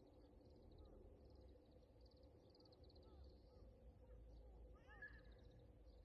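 Faint outdoor ambience of birds calling: rapid high trills and small chirps throughout, with one louder call about five seconds in, over a low rumble.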